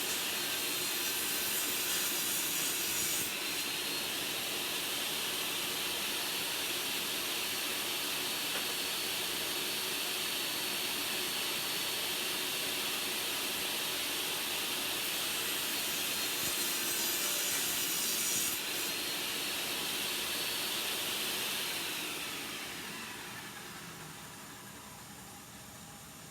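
Table saw running and cutting birch plywood, a steady high-pitched whine with sawing noise, then spinning down and fading about 22 seconds in.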